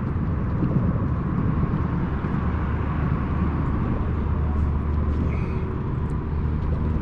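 Steady low engine drone with an even rushing noise over it.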